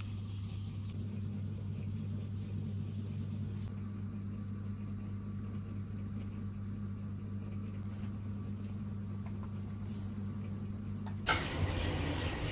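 A steady low machine-like hum. About eleven seconds in, a louder rushing noise starts as an electric coffee grinder runs, grinding beans into a paper bag held under its spout.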